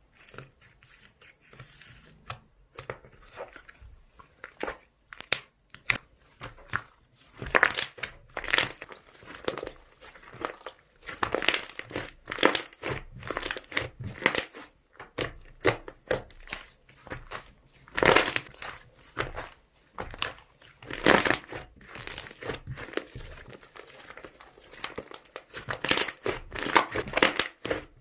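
Slime being squeezed, stretched and pressed by hand, making irregular crackling, crinkling squishes that become louder and denser after the first several seconds.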